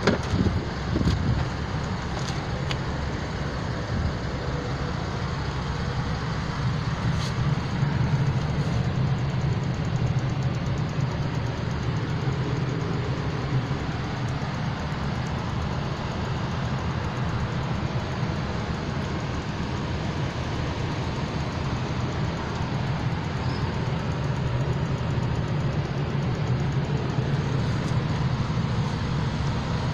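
Steady low vehicle rumble, with a few clicks near the start as a car door is opened.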